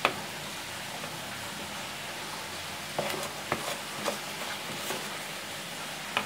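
A metal spoon stirring thick, wet seasoned flour batter in a plastic bowl, with the spoon clicking against the bowl several times.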